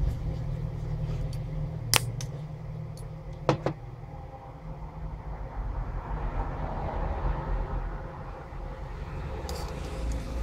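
Diagonal cutters snipping the wire leads of ceramic power resistors: one sharp snip about two seconds in and a quick double snip about a second and a half later, over a steady low rumble.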